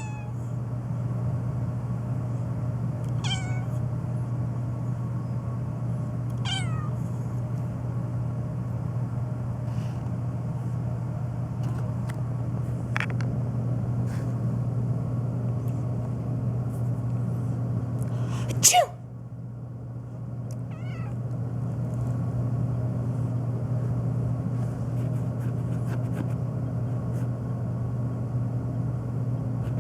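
Domestic cat meowing several times, short calls a few seconds apart, over a steady low hum. A person sneezes loudly about two-thirds of the way through, and the cat meows again right after.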